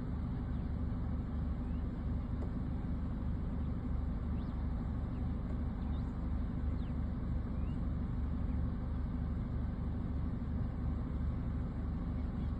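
Wind buffeting a phone's microphone, a steady low rumble.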